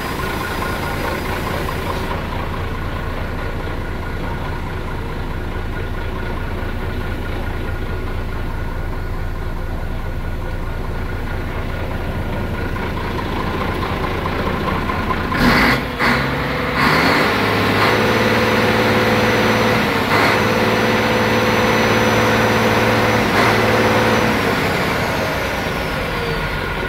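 DAF XF 95.430's six-cylinder diesel engine idling steadily. About fifteen seconds in come a few sharp knocks, then a louder engine tone with a faint high whine on top holds for about six seconds before settling back.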